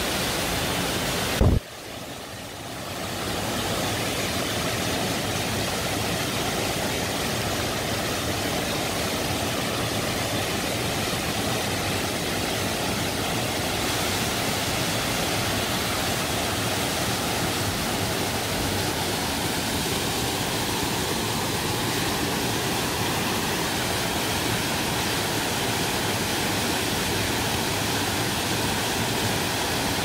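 Waterfall plunging into a deep pool: a steady rush of falling water. About a second and a half in there is a short knock, then the sound drops away and swells back over the next two seconds.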